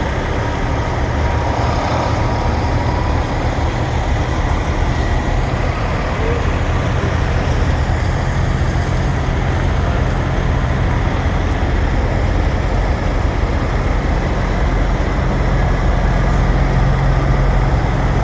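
Heavy diesel logging trucks in a convoy, their engines rumbling steadily, growing a little louder near the end.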